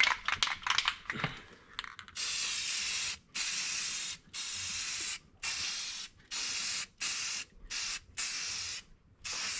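Aerosol can of Rust-Oleum paint and primer spraying paint in about nine short bursts, starting about two seconds in, each under a second to about a second long. A few short clicks come before the spraying.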